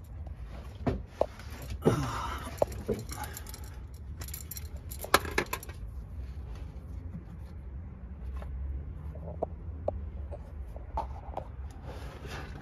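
Irregular clinks, knocks and scrapes of hands working on metal and rubber parts under a van, with a few short falling squeaks in the first few seconds.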